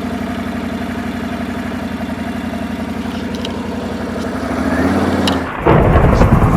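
Four-wheeler (ATV) engine idling steadily, picking up slightly about four and a half seconds in. Just before the end a sudden, louder, rougher sound cuts in over it.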